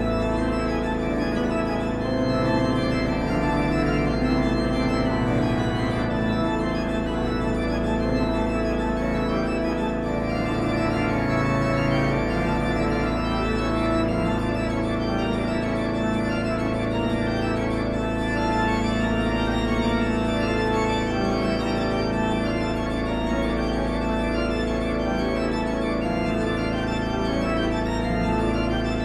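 Organ music playing slow, long-held chords.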